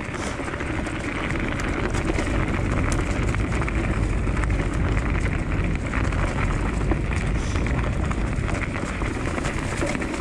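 Steady rolling noise of a dog-pulled Diggler DSK kick scooter's tyres over a dirt trail covered in dry leaves, with a fine crackle of leaves under the wheels. Wind rumbles on the microphone.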